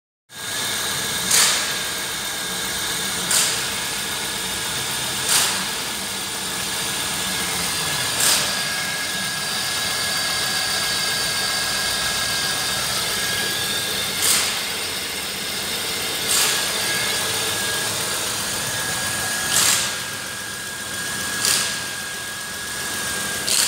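Holden Commodore 3.8-litre V6 engine idling steadily, with a steady high whine running through it. A few sharp clicks break in every two to three seconds or so.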